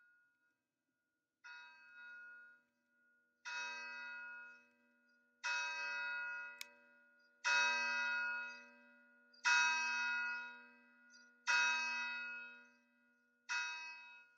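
A single church bell tolling, one stroke about every two seconds, each ringing on until the next. The strokes fade in over the first several seconds, then hold at a steady loudness.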